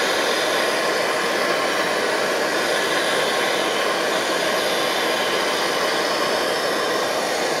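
MSR Dragonfly white-gas stove burning at full output: the steady rushing hiss of the pressurised burner, heating a pot of water that is close to a full boil.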